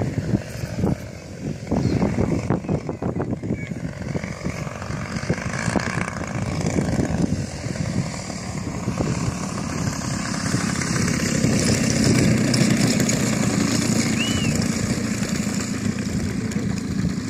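Engine of a radio-controlled Yak 54 aerobatic model plane, a 120 cc unit, running steadily as the plane makes a low pass to land and then rolls along the grass.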